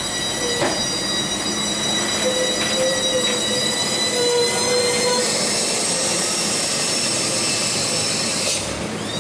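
Heavy truck brakes squealing as a loaded Hino dump truck creeps around a hairpin: a high-pitched whine of several steady tones that shifts pitch about five seconds in, over a low road rumble. A short rising squeak comes near the end.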